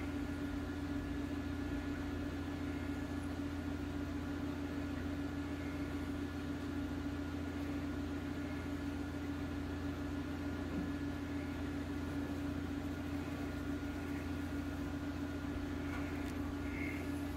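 Steady mechanical hum of running equipment: a low drone with a higher steady tone over it and a light hiss, unchanging throughout.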